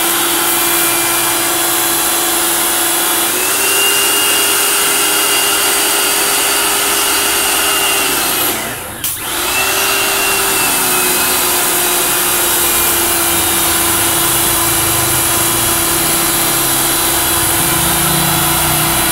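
Electric motorbike pressure washer running steadily, its pump motor humming under the hiss of the water jet spraying onto a carpet; about halfway through the motor sags briefly and then picks up again.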